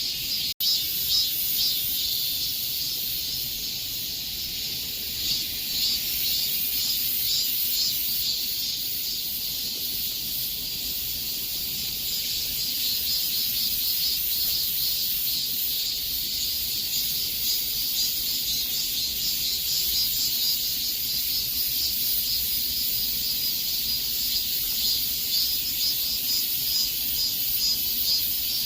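A chorus of cicadas buzzing in a dense, steady, high-pitched drone with a fine rapid pulse. It drops out for an instant about half a second in.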